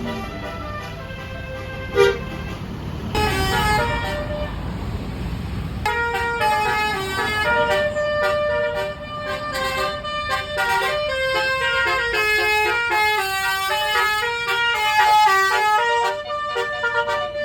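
Basuri telolet musical horn on a bus playing a quick melody of short stepped notes, which starts about three seconds in and runs on without a break from about six seconds. In the first few seconds it sits over the low rumble of engine and traffic, with one sharp knock about two seconds in.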